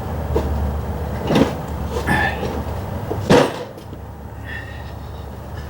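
A few short clunks and knocks, the loudest about three and a half seconds in, over a low steady hum that stops at that moment.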